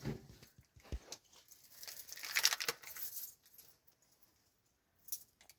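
Intermittent rustling and light clicks of small things being handled, loudest as a short rustle about two and a half seconds in.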